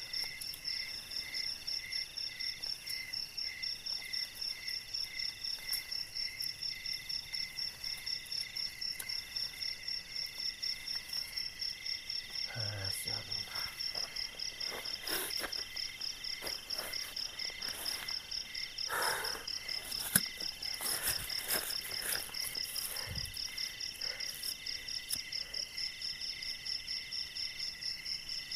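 Night insect chorus, crickets chirping steadily in several high-pitched layers that pulse about three to four times a second. Through the middle there is rustling and clicking of things being handled close by, with one sharp click about two-thirds of the way through.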